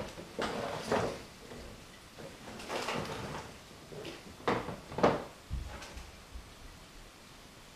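A string of sharp knocks and clatters from household things being handled, cupboard-door and drawer-like bangs, with the loudest about five seconds in, then the room goes quiet.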